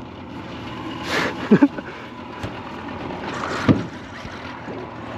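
A small boat's motor running steadily, with two short louder knocks or splashes, about a second and a half and three and a half seconds in.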